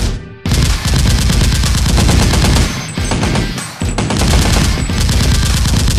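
Rapid automatic-gunfire sound effects dubbed over Nerf blaster shooting, firing in long bursts with brief breaks about half a second in, about three seconds in, and shortly after, over background music.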